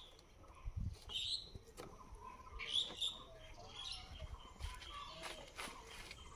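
Birds chirping faintly in short calls, with a few low thumps of handling noise.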